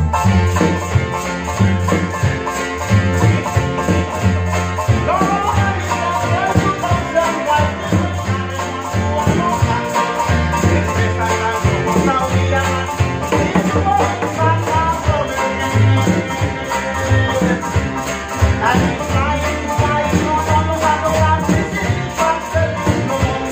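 A Vanuatu-style string band playing: acoustic guitars and a small ukulele strummed over the thump of a one-string box bass, with a hand drum and a shaker keeping the beat. Men's voices sing along at times, about five seconds in and again near the end.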